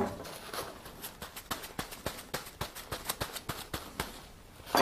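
Cloth with acetone rubbed briskly over a piece of bow horn to degrease it: a quick, uneven series of light scrubbing strokes, several a second, followed near the end by one louder knock.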